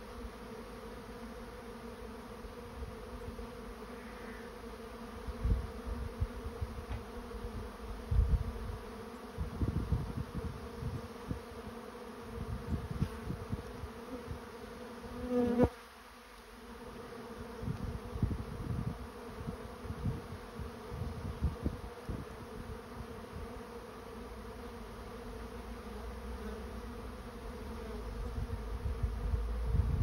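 A honey bee swarm in flight: the steady, dense hum of many bees flying around the hives as the swarm moves into a swarm trap. One louder buzz comes about halfway through, and low rumbles of wind on the microphone come and go.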